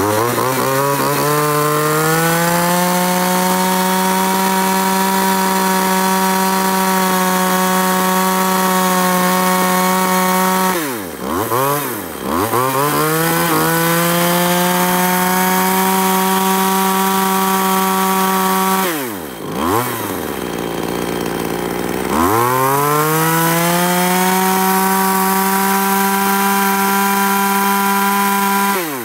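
Maruyama CST311 31cc top-handle two-stroke chainsaw on a test run, revved to full throttle with the pitch climbing and then holding steady. The throttle is let off briefly about a third of the way in and the saw drops to idle for a couple of seconds about two-thirds through. It then revs again to full throttle and is let off near the end.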